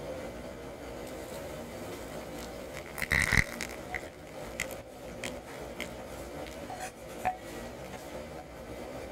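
Glass bowl clinking sharply about three seconds in with a brief ring, as melted butter is poured onto biscuit crumbs, followed by a scattering of light clicks and taps over a steady low hum.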